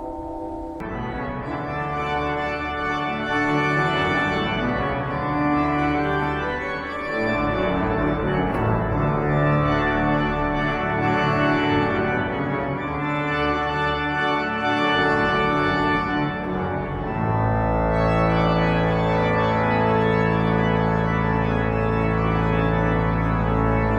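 Cathedral pipe organ playing sustained full chords, with a deep pedal bass entering about three-quarters of the way through.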